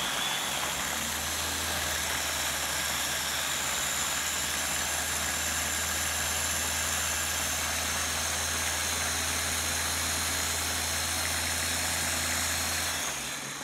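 Ninja press-top chopper's motor running steadily, blending chopped green apple and water, with a constant low hum under a loud whirr. It stops shortly before the end.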